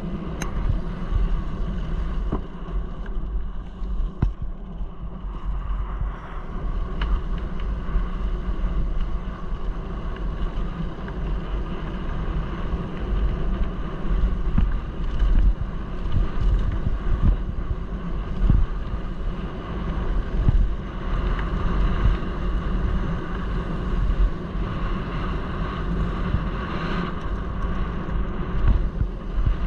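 A mountain bike descending a gravel double track, heard through wind rushing over the microphone: a steady low rumble with tyre noise on gravel and frequent short sharp rattles of the bike over bumps.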